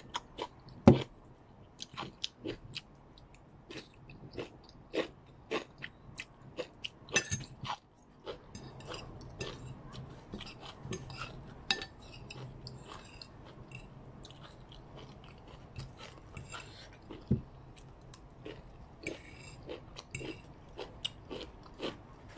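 A person chewing and crunching a mouthful of stir-fried noodles with crisp vegetables and crispy onions close to the microphone, in irregular wet crackles and crunches. There is one sharper click about a second in.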